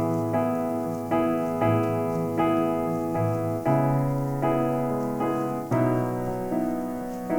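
Small electronic keyboard with a piano sound playing a slow instrumental intro: sustained chords struck about every three-quarters of a second, each fading before the next.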